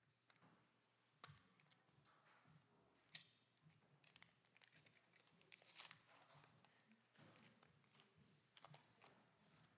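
Near silence in a quiet room, broken by faint scattered clicks and rustles, with a few sharper ticks about a second, three seconds and six seconds in.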